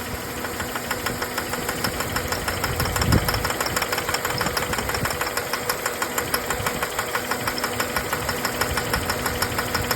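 2004 Jeep Grand Cherokee WJ 4.0 L straight-six idling with a steady, rapid ticking knock, several beats a second, whose cause the owner does not know. A single low thump about three seconds in.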